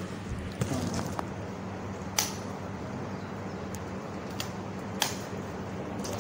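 Steady low electrical hum and hiss of a recording's background, broken by a few sharp clicks, the loudest about two seconds and five seconds in.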